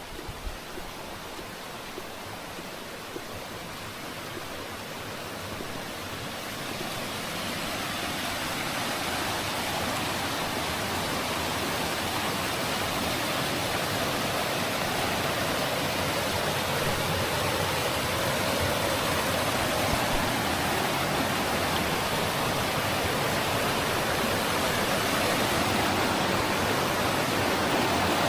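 Rushing water of a mountain stream, a steady hiss that grows gradually louder over the first several seconds and then holds.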